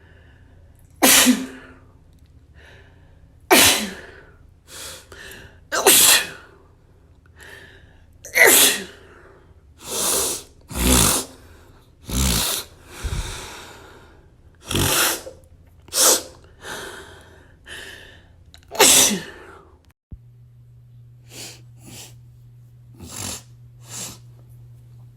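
A person sneezing over and over, about a dozen loud sneezes a second or a few seconds apart, with a few softer ones near the end: a sneezing fit set off by dust.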